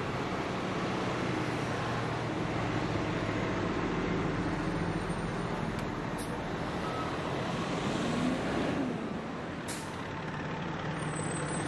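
Diesel engines of fire trucks running as a convoy of fire apparatus passes slowly one after another: a steady low engine drone that swells as each truck goes by, with two short air hisses past the middle.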